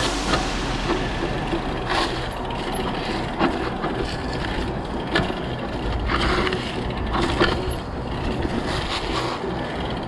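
Mountain bike ridden over rough ground: a steady low rumble of tyres and riding, broken by irregular sharp rattles and knocks from the bike every second or two.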